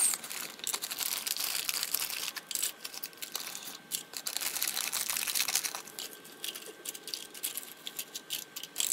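Plastic crinkling, with many light clicks and taps, as small plastic items and their packaging are handled.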